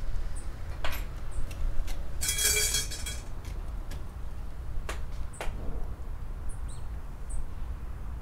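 A Japanese shrine bell (suzu) shaken by its rope, jangling and ringing for about a second, two seconds in. Scattered sharp clicks come around it, two of them close together near the middle, over a steady low rumble.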